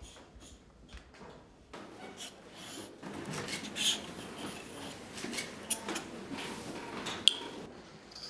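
Calligraphy writing sounds: a pen or brush scratching across paper, with a few sharp clicks and taps of the writing tools, the loudest near the end. The scratching starts about two seconds in and gets louder a second later.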